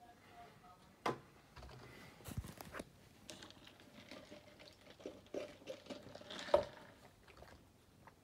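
Handling noise from a phone held against cloth: scattered knocks and rustles, with a sharp knock about a second in and the loudest one at about six and a half seconds.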